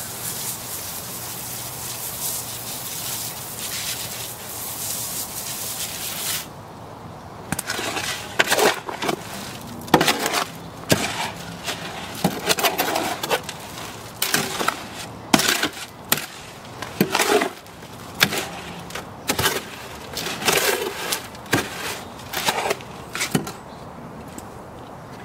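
Garden hose spraying water onto dry concrete mix in a wheelbarrow, stopping about six seconds in. Then a shovel scrapes and chops through the wet concrete mix against the wheelbarrow's pan in irregular strokes, roughly one a second, that die away near the end.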